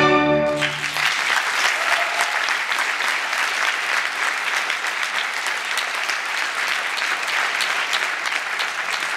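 The orchestra's final chord dies away about half a second in, and a theatre audience breaks into steady, sustained applause.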